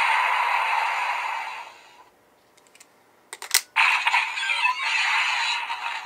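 Toy blaster's electronic sound effects playing through its small speaker. They fade out about a second and a half in, a few sharp plastic clicks come from the toy, and then its sounds start again.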